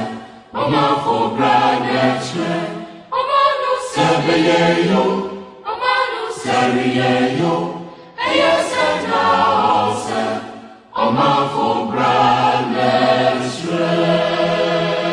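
A choir singing as music, in phrases of about two and a half seconds separated by short breaks.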